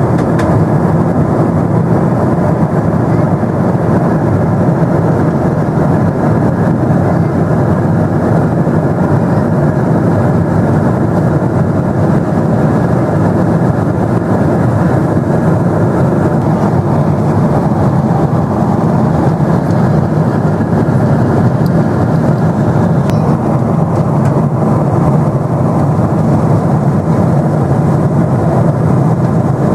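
Boeing 777-300 jet engines and rushing airflow heard inside the passenger cabin while the airliner climbs after takeoff. The roar is steady and unchanging.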